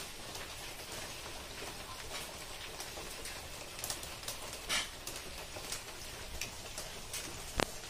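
Wood fire crackling in a chulha under a griddle: a steady hiss with scattered sharp pops, the sharpest near the end.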